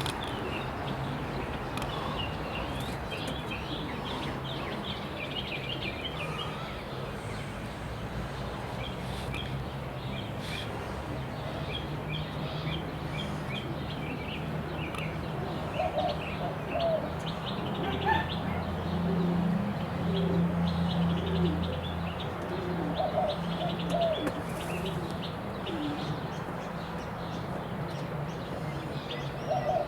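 Pigeons calling in a loft, with many short high chirps throughout and repeated lower cooing calls from about halfway. A low steady hum sits under the middle stretch.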